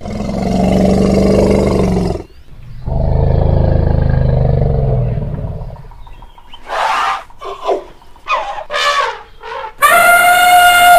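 African elephant calling: two long, low rumbling roars, then several short calls, and a loud high trumpet about ten seconds in that falls in pitch at the end.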